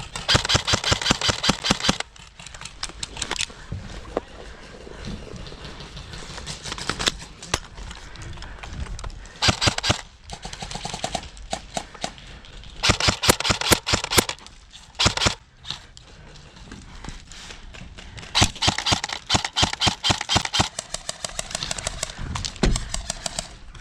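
Airsoft electric rifles firing full-auto bursts: rapid trains of sharp clicking shots, several times over, the longest and loudest in the first two seconds, about thirteen seconds in and around nineteen to twenty-one seconds in.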